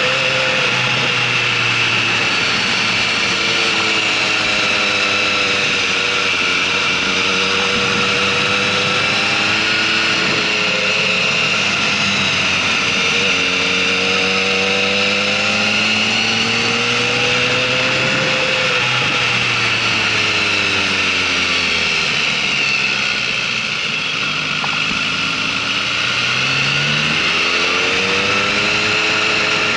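Motorcycle engine heard from on board while riding a track lap, its pitch rising and falling repeatedly as the rider accelerates and eases off through the corners, over a steady rushing noise.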